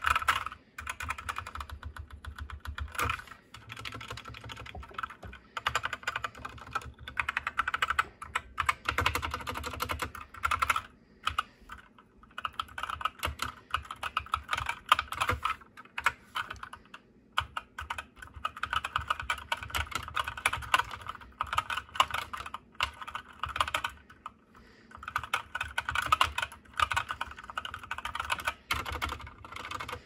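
Typing on a GK61 60% mechanical keyboard with Gateron Red linear switches: fast runs of clacking keystrokes broken by short pauses.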